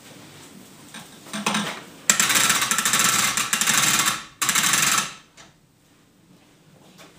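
Rope ratchets being pulled tight, a rapid ratcheting rattle for about two seconds, then a brief second pull after a short pause, as the ropes hoist a sheet of sheetrock toward the ceiling. A light knock comes just before.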